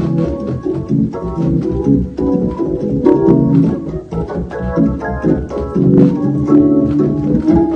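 Two-manual console organ played live with both hands: full sustained chords with quick changes and short stabbed notes.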